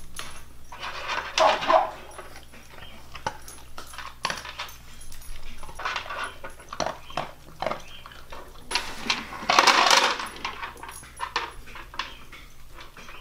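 Dogs eating dry kibble from the plastic tray of a Wopet automatic pet feeder: many small clicks and rattles of kibble against the plastic, with two louder, noisier stretches about a second in and near ten seconds.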